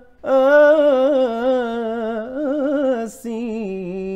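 Solo male voice singing a naat in melismatic style, drawing out a held vowel that wavers up and down in ornaments. It takes a quick breath about three seconds in, then holds a lower note.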